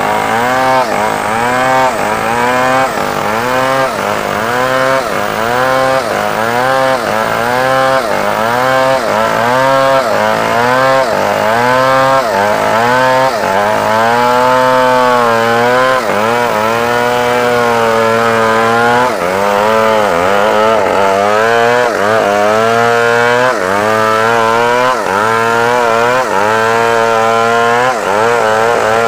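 Stihl MS 381 two-stroke chainsaw cutting through a squared timber beam at high revs. The engine pitch dips under load and recovers about once a second, holding steadier for a couple of seconds around the middle.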